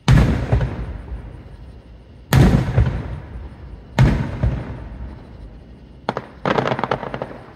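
Aerial fireworks shells bursting overhead: three loud booms about two seconds apart, each trailing off in a rolling echo, then a sharp bang and a quick run of crackling pops near the end.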